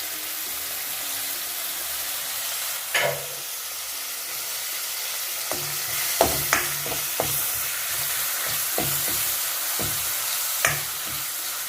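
Red onions and curry leaves sizzling in hot oil in a metal wok, with a spoon knocking and scraping against the pan as they are stirred: a sharp knock about three seconds in, a cluster of them around halfway, and one more near the end.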